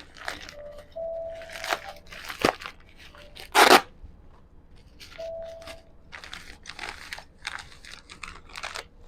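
Packaging being torn open and crinkled by hand during an unboxing: irregular rustling and ripping, with a sharp click about two and a half seconds in, a loud rip about a second later, and a couple of short squeaks.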